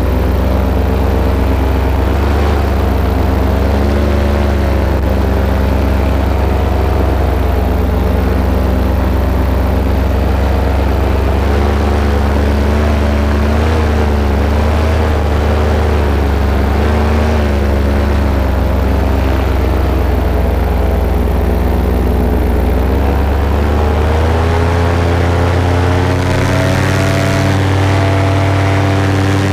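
Paramotor's two-stroke engine and propeller running steadily, its pitch wavering a little with the throttle, then rising as it is opened up near the end.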